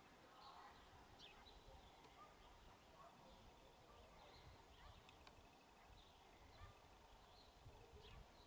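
Near silence, with faint, scattered short chirps of small birds.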